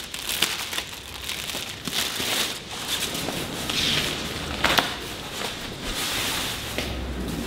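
Plastic packaging crinkling and a fabric bimini cover rustling as it is unwrapped and shaken out, in uneven handfuls with a sharp crackle about three-quarters of the way through.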